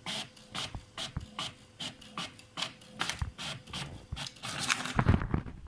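HP Deskjet F4280 inkjet printer running a print job, its print-head carriage sweeping back and forth about three times a second, with a louder thump near the end. The pages come out blank although there is ink: the black cartridge is clogged.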